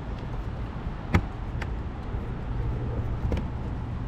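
City street traffic heard from a moving bicycle: a steady low rumble of vehicles, broken by three sharp clicks, the loudest about a second in.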